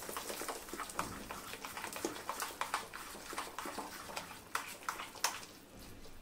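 Metal spoon stirring thick green pea and semolina idli batter in a bowl: a run of irregular scrapes and clicks of the spoon against the bowl, thinning out near the end.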